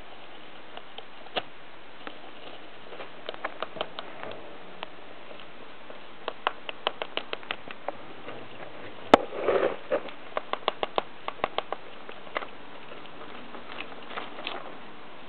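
Pet hamster gnawing and scrabbling at a clingfilm-wrapped tube to reach a peanut in its shell. It makes bursts of rapid sharp clicks, with a single sharp crack and a brief crinkling rustle a little past halfway.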